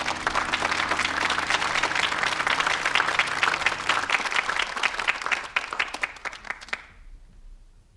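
Live audience applauding at the end of a jazz piano trio tune, heard on an off-air cassette recording of an FM broadcast. The clapping starts as the trio's last notes die away, thins to a few scattered claps and stops about seven seconds in.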